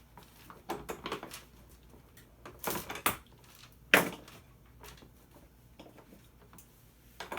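Hand tools and hard plastic and metal parts knocking and clicking as a ride-on toy's rear end is taken apart: a handful of sharp clicks and clunks with pauses between, the loudest about four seconds in.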